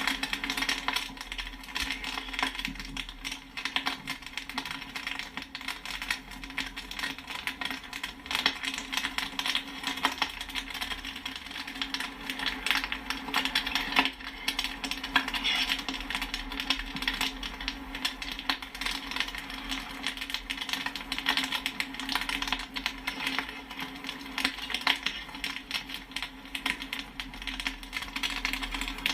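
Popcorn kernels popping and pinging continuously, many sharp pops a second with no let-up, over a steady low hum.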